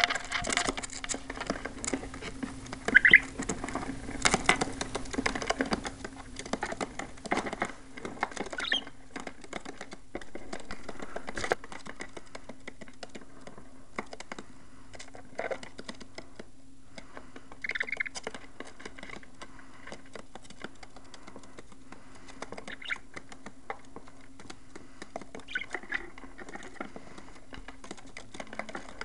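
Pet budgerigars scrabbling and pattering about, with many light clicks and scratches and a few short chirps; the scrabbling is busiest in the first several seconds, then thins out.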